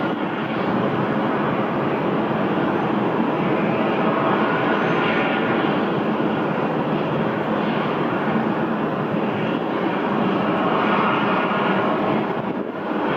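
Steady rushing noise of a Boeing 787-9 airliner's jet engines as it taxis slowly.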